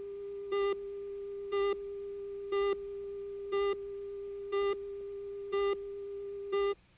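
Videotape countdown leader: a steady test tone with a short buzzy beep once a second as the count ticks down. It cuts off abruptly near the end.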